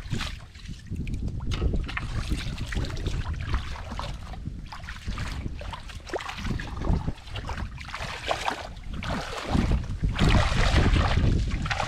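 Irregular sloshing and splashing of water and wet mud, with low wind rumble on the microphone; loudest near the end.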